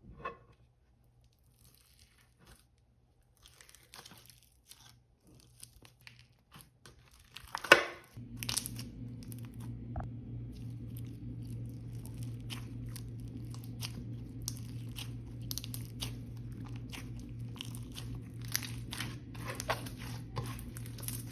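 Slime being squished and stretched by hand, giving scattered sticky clicks and crackling pops that grow denser after a louder squelch about eight seconds in. A steady low hum runs under the second half.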